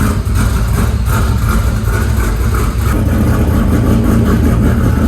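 LS V8 engine in a Pontiac Fiero idling steadily on its newly fitted Holley Sniper throttle-body fuel injection, having just caught after cranking.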